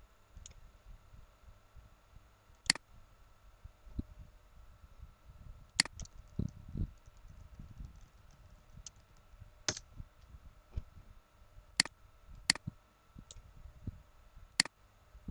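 Computer mouse clicks: about six sharp, single clicks at irregular intervals, with a short run of faint key taps in the middle and a few soft low thumps.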